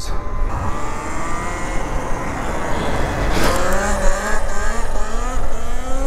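Talaria Sting electric dirt bike's motor whining while riding at speed, over heavy wind rush and tyre noise. The whine sags slightly, then climbs in pitch from about halfway as the bike accelerates.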